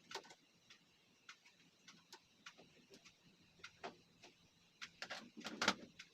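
Scattered light clicks and taps of small parts and tools being handled during the TV repair, at irregular intervals, with a louder cluster of knocks near the end.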